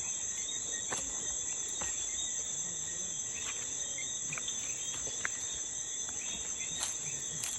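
Night chorus of crickets and other insects, a steady high-pitched trill, with a few faint clicks.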